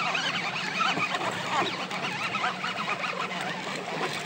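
Many birds calling at once, short wavering calls overlapping and thinning out toward the end, over a steady low hum.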